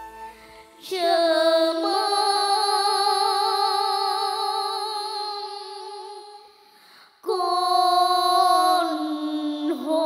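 Children's voices singing a Vietnamese song in duet: a long held note with wide vibrato that slowly fades, then a second held note comes in strongly about seven seconds in.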